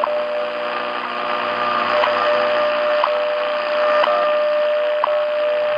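WWV time-signal broadcast on 10 MHz shortwave, heard through a radio receiver: a steady tone, broken by a short sharp tick about once a second, over a background of shortwave hiss.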